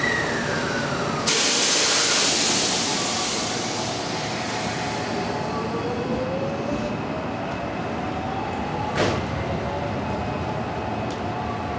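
Electric train sounds at a station platform: a sudden loud hiss about a second in that fades away over a few seconds, a whining tone that slides down and then slowly rises, and one sharp knock near the end.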